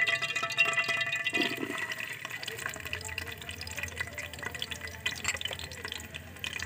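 Chopped onion tipped into hot ghee in a pan, sizzling and crackling as it starts to fry; the sizzle is loudest at first and slowly settles down.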